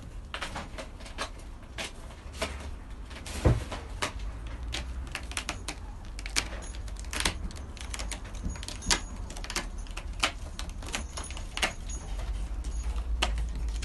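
Irregular light clicks and knocks, with one louder thump about three and a half seconds in, over a low rumble.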